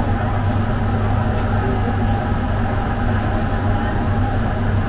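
Steady mechanical hum with a strong low drone.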